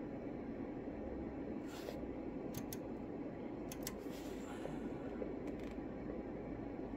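Steady low hiss, with a few faint, short clicks as the fine-tune knob of a bench signal generator is turned.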